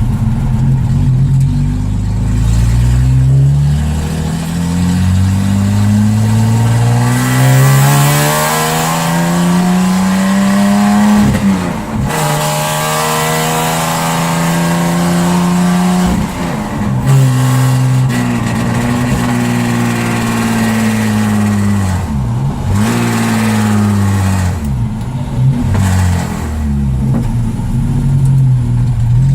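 Jaguar XJ6 Series 1's XK straight-six running loud and unsilenced with its exhaust not fitted, pulling under acceleration. The engine note climbs for several seconds, drops sharply about twelve seconds in, then holds with several brief dips.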